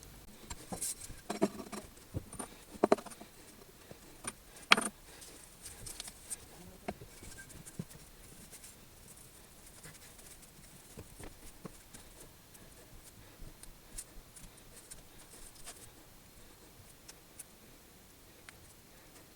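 Light clicks, taps and knocks of small hard objects being handled, busiest in the first five seconds with one sharp knock about five seconds in, then only sparse faint clicks.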